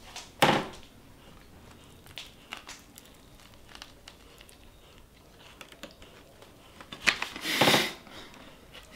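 Paper sandwich wrapper rustling and crinkling as it is handled, with a short crinkle about half a second in and a longer, louder crinkle near the end.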